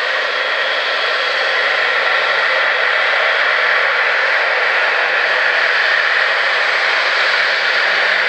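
Boeing 777-300ER's two GE90 turbofan engines running steadily as the airliner taxis and turns onto the runway, a loud, even jet rush with a faint low hum beneath it.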